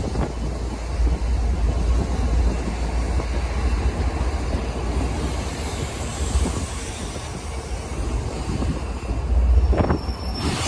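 MBTA commuter rail bilevel passenger coaches rolling past at close range, a steady rumble of steel wheels on rail that swells louder a little before the end.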